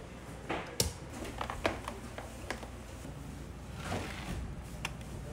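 A handful of sharp clicks and knocks from small tableware being handled and set down on a wooden counter during cleaning, the loudest about a second in, over a low steady hum.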